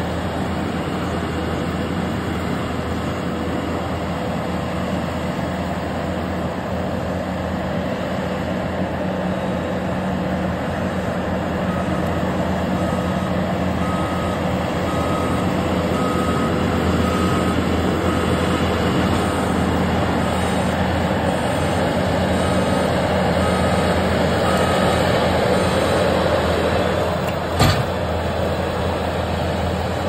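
Case TR340 compact track loader's diesel engine running steadily with its rotary brush cutter spinning through brush. Through the middle the loader's reversing alarm beeps at an even pace, and a single sharp knock sounds near the end.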